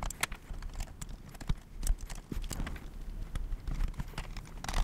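Irregular small clicks and taps from a small screwdriver and plastic parts being handled inside an opened laptop as the cooling fan assembly is fastened back in place.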